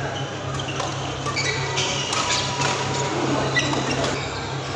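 Busy badminton hall: sports shoes squeak sharply on the court mats and rackets pop against shuttlecocks from play around the hall, over a steady low hum.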